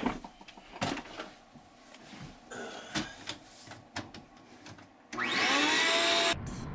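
Scattered knocks and clicks of handling, then about five seconds in a Ridgid wet/dry shop vacuum switches on loudly, its motor whine rising as it spins up, and cuts off suddenly after about a second.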